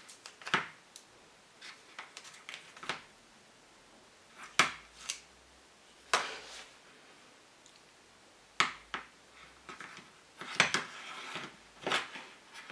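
Hand tools and small metal parts clicking, tapping and scraping at a workbench. The sharp knocks come irregularly, a second or two apart, with a busier run of scraping and clicks near the end.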